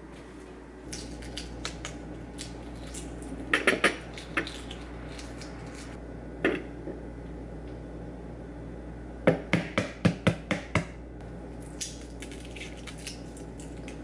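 Hard-boiled eggs being cracked and peeled: the shells are tapped sharply against the countertop, with a few scattered clicks and then a quick run of about seven taps a little past the middle, plus fainter clicks of shell near the end.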